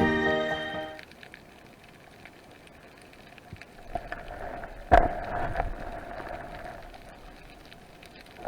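Background music ending within the first second, then a low steady hiss with scattered small clicks, and one sharp knock about five seconds in that rings on briefly.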